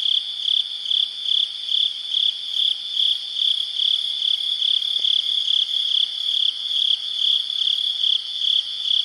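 Crickets chirping at night: a high, even chirp repeating a little over twice a second over a steady insect hum.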